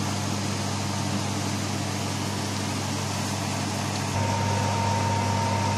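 Steady mechanical hum with a low drone; about four seconds in it grows slightly louder and a steady higher whine joins it.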